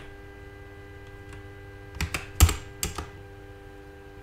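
A handful of computer keyboard keystrokes about two seconds in, one heavier and louder than the rest, over a faint steady electrical hum.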